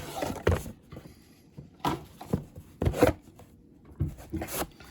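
Cardboard Pokémon Elite Trainer Box being handled and opened: a few short knocks and scrapes of cardboard, the loudest about three seconds in.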